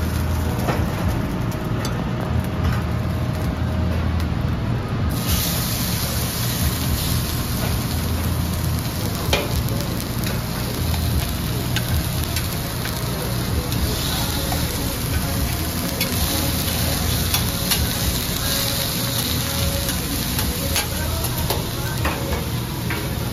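Food frying on a steel teppanyaki griddle: a steady sizzle that grows brighter and louder about five seconds in, with scattered metal clicks and scrapes from the chef's spatulas on the hot plate, over a steady low hum.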